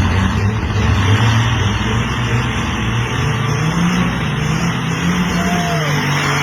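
Big diesel engine of a drag semi-truck running loudly at a low, steady speed; its pitch rises a little about three seconds in and then holds.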